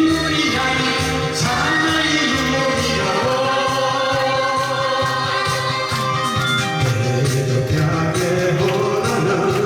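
Song accompaniment with long held chords over a steady beat, and choir-like singing.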